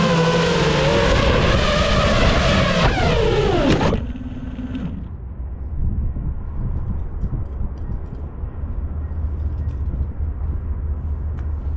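FPV quadcopter's brushless motors (Lumenier Zip V2 2407s on 5-inch props) whining and shifting in pitch, then sweeping sharply down and cutting out about four seconds in as the motors spool down. After that, a low rumble of wind buffeting the microphone.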